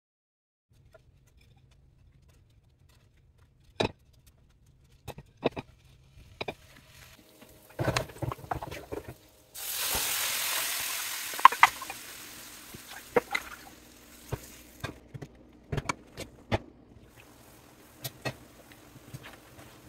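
Spaghetti sauce poured from a pot into a hot ceramic-coated frying pan of bacon-wrapped spaghetti bundles. It sizzles loudly and suddenly about halfway through, then dies down to a faint sizzle. Several sharp knocks and clinks of pan and utensils come before and after.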